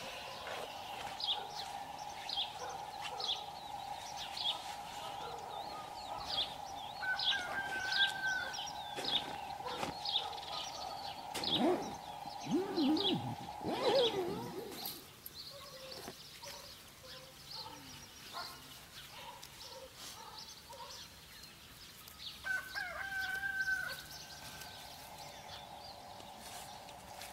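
A rooster crowing around the middle, with small birds chirping in quick short calls through the first half, over a steady hum that drops out midway and returns near the end.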